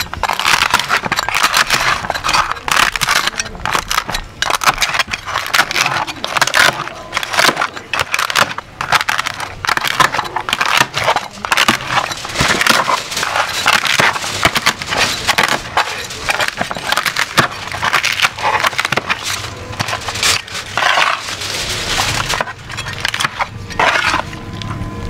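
Two cleavers chopping and crunching through spit-roasted pig with crisp crackling skin on a metal sheet pan: a dense, irregular run of crunches, cracks and knocks.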